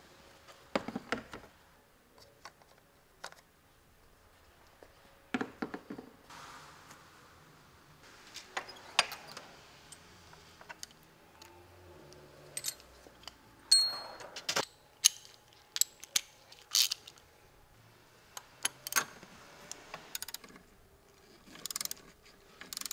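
Hand tools being handled: the plastic engine cover set down into a bin, metal sockets and ratchets clinking as they are taken from a tool-chest drawer, and a ratchet clicking on the engine. Scattered clinks, clanks and clicks, the loudest metal clanks in the middle.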